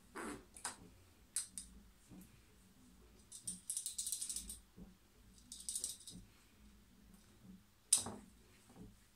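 Small red plastic cage-shaped rattle toy shaken by hand: two short bursts of rattling, one about three and a half seconds in and a briefer one near six seconds, with a few sharp clicks around them, the loudest about eight seconds in.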